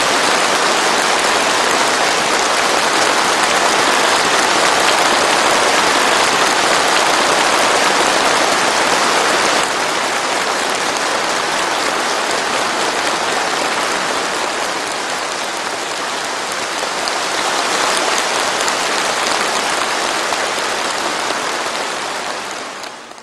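Large crowd of people applauding steadily, fading out near the end.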